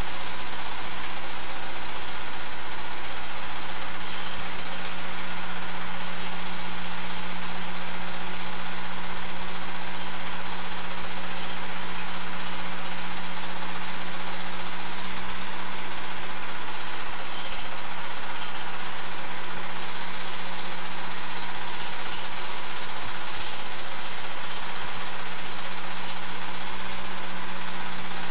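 Steady mechanical running noise with a constant low hum and hiss, unchanged through every change of scene: the sound of a Super 8 film projector running as the silent home movie is transferred.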